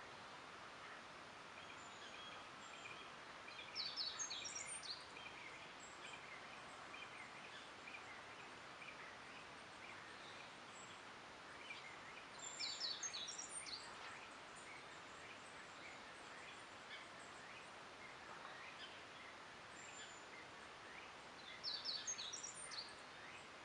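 Forest birdsong: one bird sings a short, high, chirping phrase three times, roughly every nine seconds, over fainter calls of other birds and a steady background hiss.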